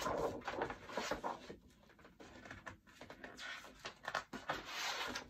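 Paper rustling and handling noise as a picture book's pages are turned, with a couple of stretches of rustling and light clicks.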